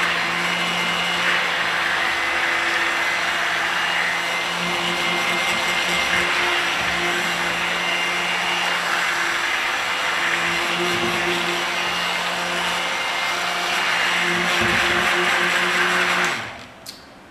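Handheld stick blender running steadily, immersed in a bowl of raw cold-process soap batter (lye solution, oils and fragrance) to blend it toward trace. It switches off about a second before the end.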